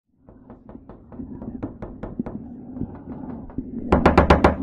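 Horror sound effect: a steady low drone with scattered knocks, ending in a loud, quick run of knocks over a heavy rumble about four seconds in.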